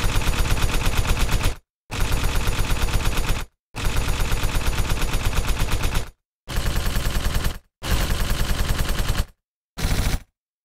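Automatic rifle fire sound effect: rapid shots in about six long bursts, each ending abruptly in a moment of dead silence.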